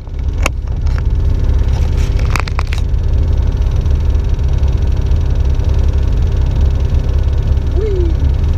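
Ultralight aircraft engine and propeller running with a steady, loud low drone, with a few sharp clicks in the first three seconds.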